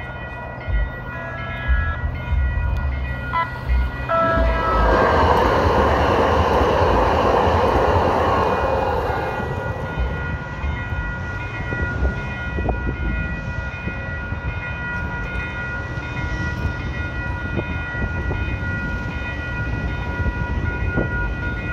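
A San Diego light-rail trolley passing through a level crossing, loudest from about 4 to 10 seconds in, while the crossing bells ring steadily and stop near the end. Wind buffets the microphone throughout.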